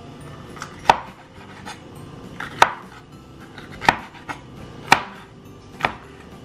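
Chef's knife slicing a red bell pepper on a wooden cutting board: five sharp knocks of the blade striking the board, about a second apart, with softer cuts in between.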